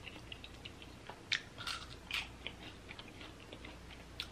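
Close-miked chewing of fried food: a string of small wet clicks with a few louder crunches, the loudest between about one and two seconds in.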